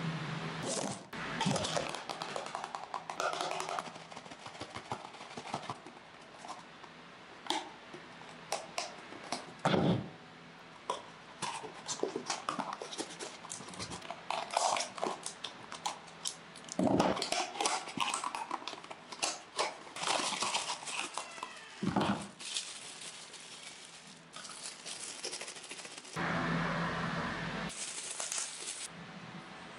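Hands handling and unwrapping small items and their packaging: irregular crinkles, taps and clicks, with a louder, denser stretch of rustling near the end.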